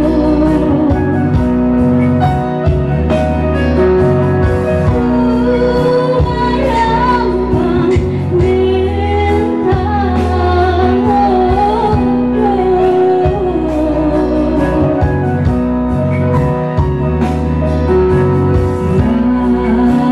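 A woman singing through a handheld microphone and PA, her voice wavering with vibrato on long held notes, over an instrumental accompaniment with steady bass notes and a regular beat.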